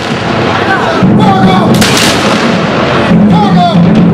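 Crowd shouting and cheering, with a loud blank black-powder shot from the reenactors' firing about two seconds in.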